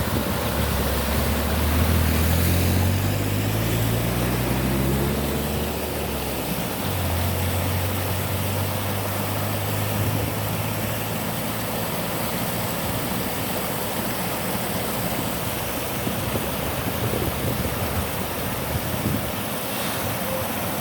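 Steady rush of water at a waterfall and river, with a motor vehicle's engine revving up over the first few seconds, its pitch climbing, then running at a lower steady hum for a few seconds more before fading under the water.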